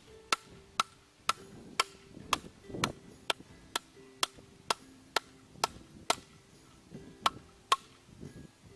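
An 8-inch fixed-blade survival knife chopping into a piece of poplar. It makes sharp strikes about two a second, with a short pause near the end. The blade is dull and makes little headway into the wood.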